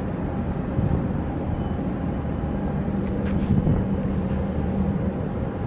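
A nearby engine running steadily, a low drone with a steady hum, with a couple of short hissing noises about three seconds in.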